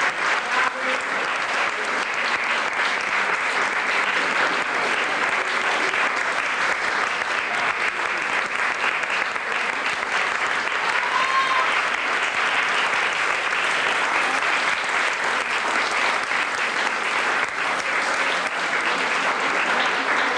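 Audience applauding steadily, a dense continuous clapping that holds at one level throughout.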